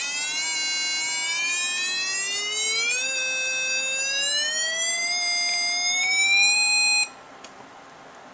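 Arduino Uno noisemaker's small speaker sounding a continuous buzzy electronic tone in its high range, gliding slowly upward in pitch as the tone potentiometer is turned, then cutting off suddenly about seven seconds in.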